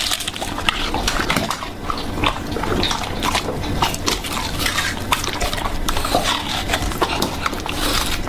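English bulldog eating a watermelon slice from a hand: a dense, steady run of quick wet chewing and smacking clicks.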